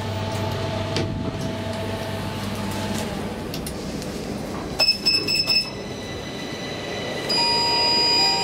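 Elevator car with a steady low hum, a quick run of short high electronic beeps about five seconds in, and a steady electronic tone that starts about a second before the end.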